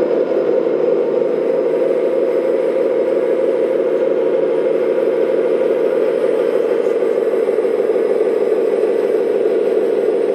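Simulated diesel truck engine sound from the RC dump truck's onboard sound module, played through its speaker and running steadily with a fast, even pulsing as the truck creeps along in low gear.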